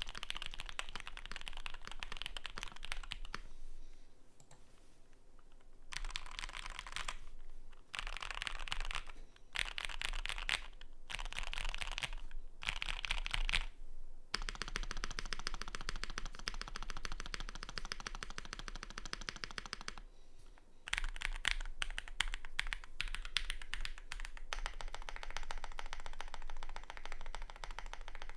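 Typing on a Keychron Q6 mechanical keyboard with lubed SP Star Meteor White V3 linear switches, a steel plate and PBT keycaps: fast, dense keystrokes, with a short pause about four seconds in and another about twenty seconds in.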